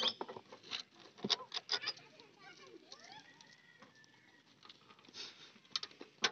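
Sharp clicks and metal taps from hand tools working on a tractor's diesel fuel filter housing, several in the first two seconds and a few more near the end. Birds chirp faintly in the background.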